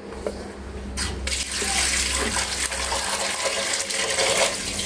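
Water running into a pressure cooker pot of onions and herbs, starting thin and growing fuller about a second in, then stopping near the end.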